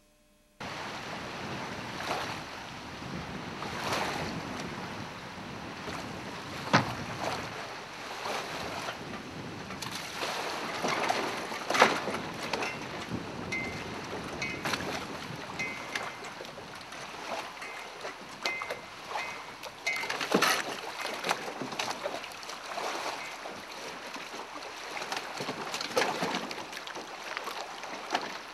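Gusty wind buffeting the microphone, with irregular knocks and pops, over water splashing and lapping.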